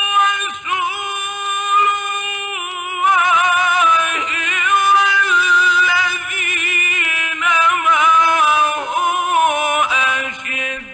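A male reciter's melodic Quran recitation (tajweed chanting), long held notes bending and trilling in pitch, with a short break near the end.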